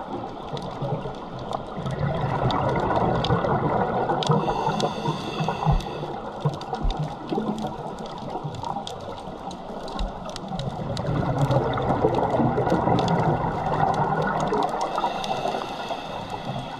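Underwater sound of a scuba diver's regulator: long bubbling exhalations that swell about 2 seconds in and again about 11 seconds in, with many sharp clicks scattered through.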